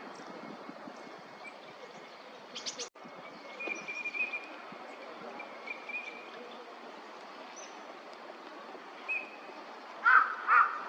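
Eurasian teal drakes giving short, high whistled "krik" calls now and then. Near the end a crow caws loudly several times.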